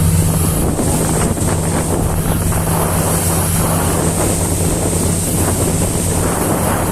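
Motorboat engine running steadily as a low hum while the boat is under way, with wind buffeting the microphone and water rushing past the hull.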